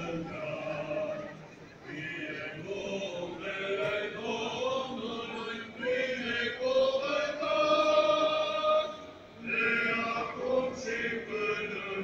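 Church choir chanting an Orthodox hymn in long held phrases, with short pauses between them.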